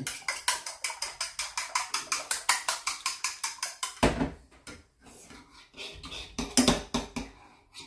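A fork beating egg in a ceramic bowl, clinking against the bowl at about six strokes a second. About four seconds in, the steady rhythm gives way to slower, irregular knocks and scrapes.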